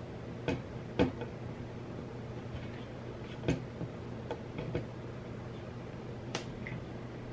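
A handful of sharp, scattered clicks and taps from hands working a screw into a painted plate-holder board while hunting for its hole, over a faint steady low hum.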